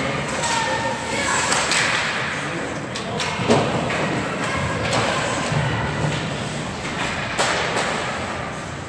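Ice hockey play: sharp knocks of sticks and puck against the ice and boards, several in a few seconds, over a steady background noise.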